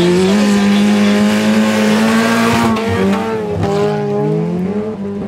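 Wreck-race cars racing on a dirt track, their engines revving hard. The pitch holds high, drops briefly about three and a half seconds in, then climbs again.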